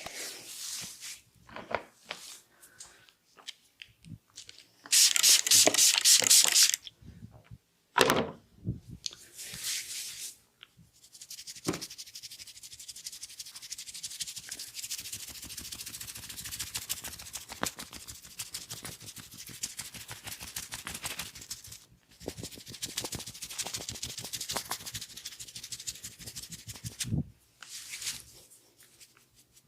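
Hands rubbing and working an oiled scalp and hair during a head massage. There is a loud burst of fast strokes about five seconds in and a single sharp sound around eight seconds, then long stretches of steady rubbing.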